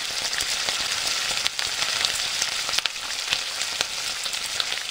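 Food frying in hot oil: a steady sizzle with many scattered crackles and pops.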